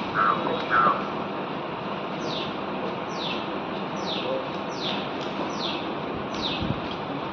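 A bird calling: two short lower notes in the first second, then a run of about seven quick, falling high-pitched notes, roughly one every 0.7 seconds. Steady background noise sits underneath.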